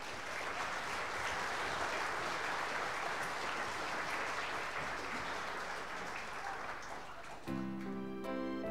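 Audience applauding in a hall, easing off slightly towards the end. About seven and a half seconds in, instrumental music starts with a few held notes.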